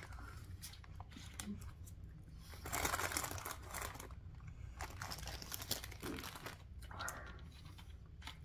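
Soft crinkling and rustling handling noises with small clicks while snacks are eaten, loudest for about a second around three seconds in and again briefly near seven seconds.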